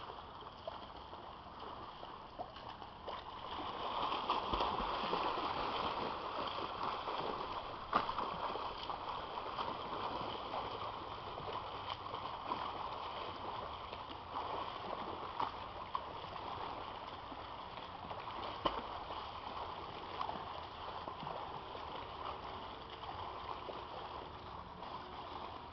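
Water splashing and churning from a swimmer's front-crawl arm strokes and kicks: a steady rushing splash, louder about four seconds in, with a few sharper slaps.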